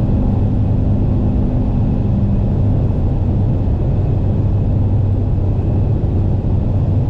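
Car engine running with a steady low drone over tyre and wind noise, heard from inside the cabin while cruising on the open highway.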